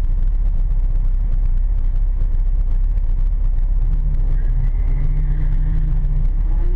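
Turbocharged Honda Civic EG6's engine idling, heard from inside the cabin: a loud, steady low rumble. From about four seconds in, it holds a slightly higher, steadier note.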